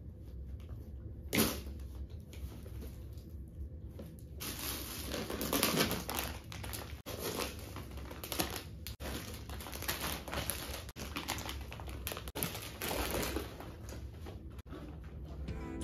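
Plastic bags and packets rustling and crinkling as things are handled and lifted out of a suitcase, irregular and busier from about four seconds in, with one sharp knock about a second in.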